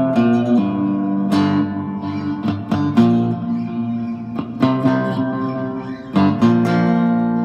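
Cigar box guitar being played: a run of picked notes that change every fraction of a second, broken by a few sharp strummed chords, the loudest about three seconds in.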